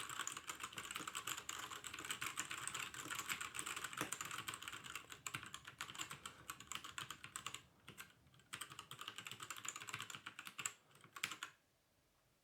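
Fast typing on a Havit 60% mechanical keyboard with brown switches: a quick, continuous run of key clicks that breaks off briefly past the middle and stops about a second before the end.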